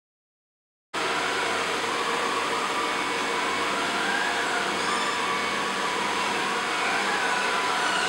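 Silence, then about a second in the sudden start of an Ameribot 720 robot vacuum running: a steady whirring hiss from its suction motor and brushes, with a faint tone that wavers slowly in pitch.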